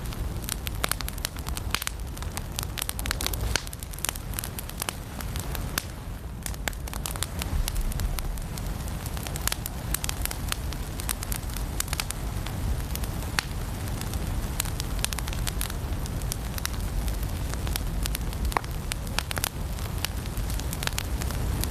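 Firewood burning in a fireplace, crackling and popping with many sharp, irregular snaps over a low steady rumble of the fire.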